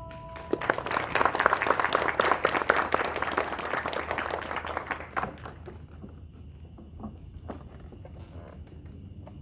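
Audience applauding after a musical number ends: a dense burst of clapping for about five seconds that then dies away to a few scattered claps and knocks.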